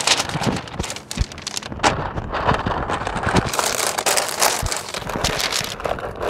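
Pink butcher paper rustling and crinkling as it is pulled, folded and pressed around a brisket, a dense run of irregular crackles.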